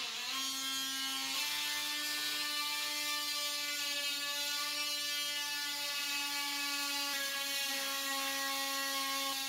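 DeWalt 20V cordless oscillating multi-tool with a carbide grout blade running steadily at one pitch as it cuts the grout out of the joints between floor tiles. Its pitch steps up slightly about a second and a half in.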